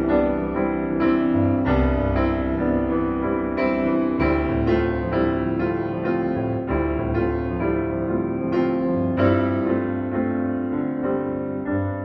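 Background piano music: a melody of struck notes over sustained low bass notes.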